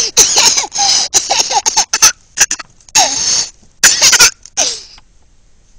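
Toddler laughing hard in about five breathy, coughing bursts with short squeals, stopping a little before the end.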